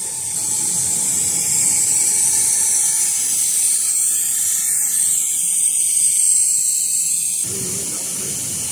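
Hot-air welding machine for PVC spiral duct running, its hot-air blower giving a steady high hiss over a low mechanical whir from the duct-forming machine. The lower sound shifts about seven and a half seconds in.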